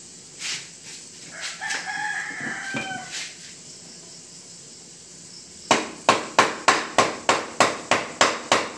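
A rooster crows once, about a second and a half in. Then, from about six seconds, a wooden mallet beats rapidly on the stalk of a bunch of green bananas, about four sharp blows a second, to loosen the hands from the stalk.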